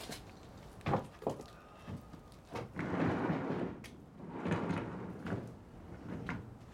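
Wooden lattice sliding door: a few sharp knocks, then two rumbling slides of about a second each as it runs along its track.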